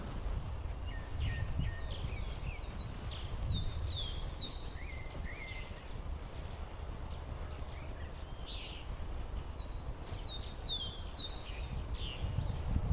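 Wild songbirds singing: quick, high whistled notes, many sweeping downward, with one short phrase heard twice. A steady low rumble runs underneath.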